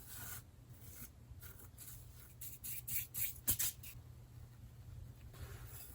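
Blade-ground coffee being passed over paper towels to catch the fines: soft papery rustling and scraping strokes, busiest about halfway through, with one sharp tap.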